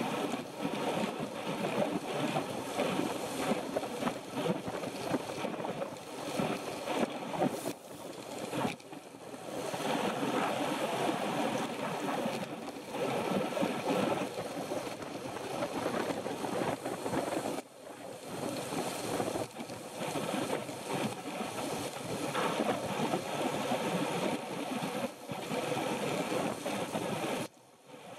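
Wind rushing over the microphone of a bike-mounted camera on a road bike at speed, a rough noise that rises and falls, with a few brief lulls.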